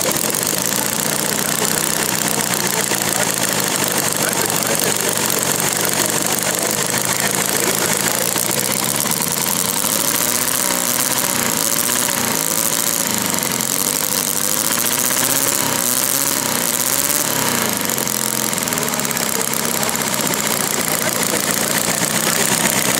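Panther Pup 2.75 cubic-inch four-cylinder model gasoline engine, with CDI ignition and zoomie-style open headers, running steadily.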